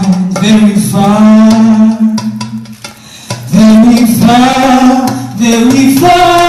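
A woman singing a melody into a microphone, holding long notes that bend up and down, with a short lull about halfway. Near the end a long steady note comes in.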